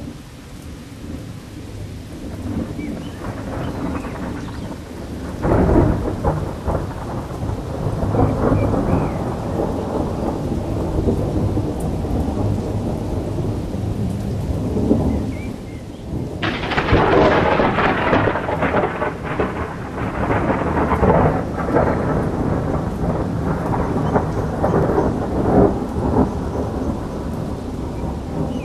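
Thunder rumbling and rolling over steady rain. A sharp crack comes about five seconds in, and a second, brighter crash starts suddenly just past the middle and rumbles on.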